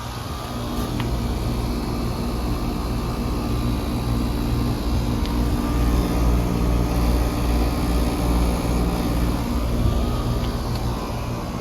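Outdoor heat-pump condensing units running in cooling mode: a 2010 Carrier Performance Series heat pump together with a neighbouring Trane XR unit. The compressors hum steadily in a few low tones under the even rush of the condenser fans.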